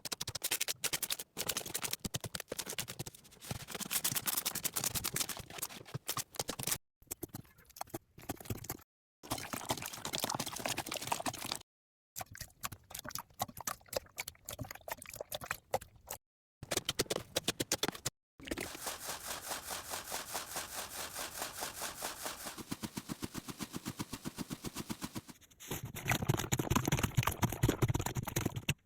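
Slime being pressed, poked and squished by hand, giving sticky, crackling clicks and pops in a string of short clips that cut off abruptly several times. In one stretch the crackles come in a quick, even run.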